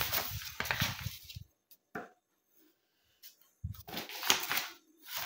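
Sheets of paper rustling, then, about four seconds in, a freshly sharpened knife slicing through a sheet of paper held up in the air.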